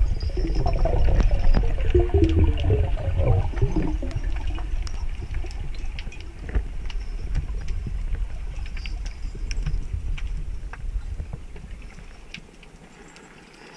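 Underwater water noise heard through a camera housing: a low rumble with bubbly gurgling, strongest in the first few seconds, and scattered sharp clicks, fading quieter near the end.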